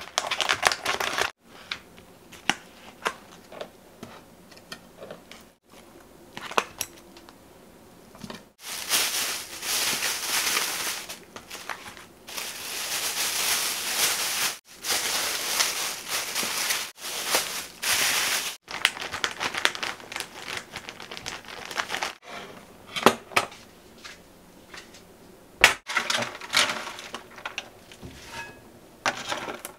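Plastic film and plastic bags crinkling and rustling as packaged pork belly is unwrapped and bagged, with kitchen-scissor snips and light clicks and taps from the plastic tray and container. The sounds come in short stretches broken by abrupt cuts, the longest and loudest rustling in the middle.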